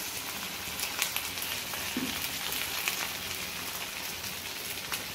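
Hot oil sizzling steadily around two noodle-crusted potato doughnuts deep-frying in a pan, with scattered sharp crackles and pops.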